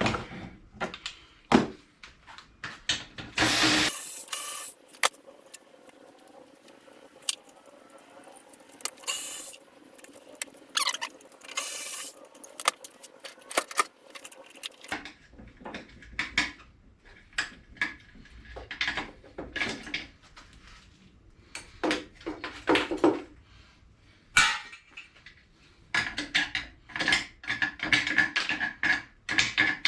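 Hand tools and metal engine parts clinking, knocking and scraping while a Briggs & Stratton lawn mower engine is taken apart, with a few short, louder scraping noises among scattered clicks.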